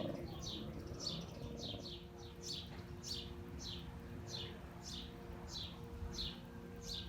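A songbird calling a rapid series of short, falling, chirp-like notes, about two or three a second, over a steady low hum of city rumble.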